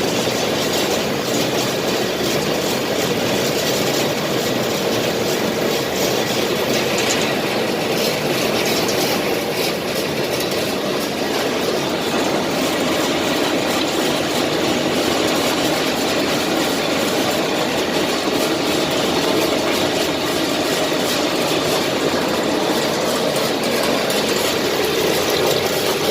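MAXIA rotary filter for a washer-peeler running: a steady mechanical rumble and rattle that stays at the same level throughout.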